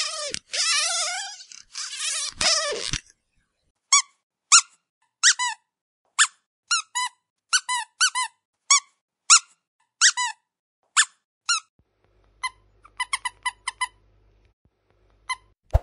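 A dog squeaky toy squeezed over and over. First come a few long squeaks that drop in pitch as they end, then single short squeaks at about one and a half a second, and near the end a quick run of rapid squeaks.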